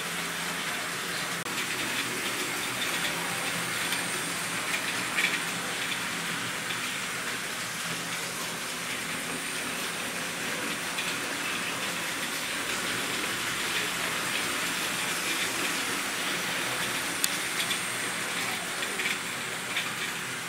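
Model trains running round the layout's track: a steady whirring rush of wheels and motors on the rails, with a faint hum and a few sharp clicks.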